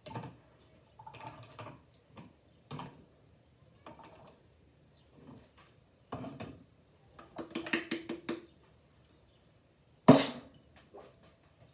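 Ladle and plastic canning funnel clinking against glass mason jars as soup is spooned in, with some liquid splashing. A run of quick clinks comes near eight seconds. About ten seconds in, a single sharp knock, the loudest sound, as an empty glass jar is set down on the counter.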